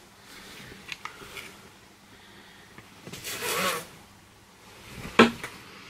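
T-shirt fabric rustling and rubbing as it is handled and held up, with a brief hummed voice sound midway and a soft click near the end.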